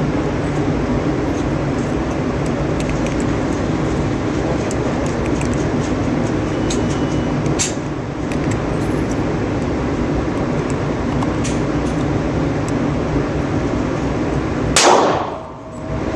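Steady rushing background noise, then a single loud shot from a Glock 20 10mm pistol near the end.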